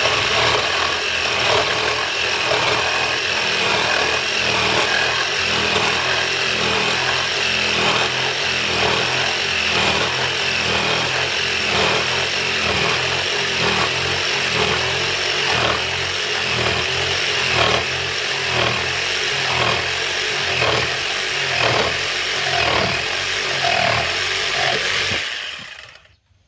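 Jigsaw fitted with a long 4x4-cutting blade sawing through a wooden 4x4, running steadily with an even pulsing and a wavering motor whine. It cuts off suddenly near the end.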